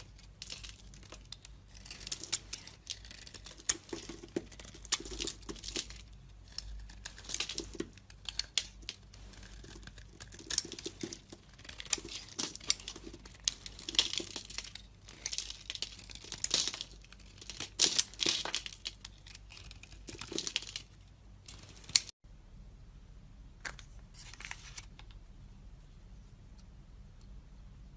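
Dry soap cubes being cut and crushed, a crisp crunching and crackling in quick irregular bursts. It stops with a sharp click about three-quarters of the way through, and only a couple of faint crunches follow.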